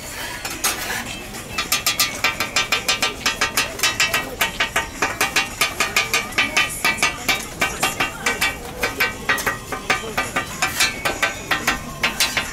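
Flat metal okonomiyaki spatula striking the iron griddle in a fast, even run of sharp, ringing metallic clicks, about four or five a second, starting about a second and a half in.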